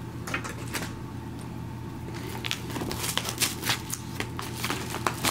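Padded paper mailer envelopes being handled: light rustling and crinkling that gets busier from about halfway through, over a low steady hum.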